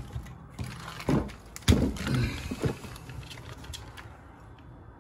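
Plastic 1/16-scale RC trucks being handled on a bench: a series of knocks and rattles as a truck is lifted and set back down, the loudest just before two seconds in.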